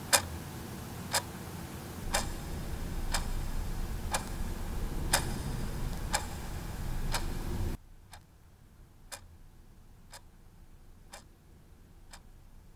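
Clock ticking steadily, one tick a second. A low steady hum under the first part cuts off suddenly about two-thirds of the way through, and the ticking continues, quieter.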